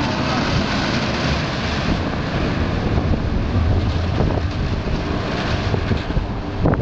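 Intamin steel looping roller coaster Colossus, its train running over the track, mixed with steady wind buffeting the microphone. A short, sharp sound comes near the end.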